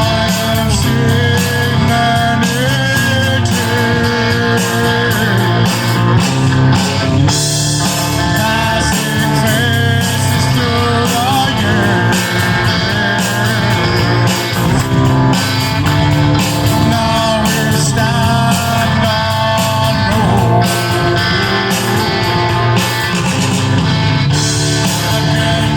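Rock music with distorted electric guitar and singing, played loud and without a break.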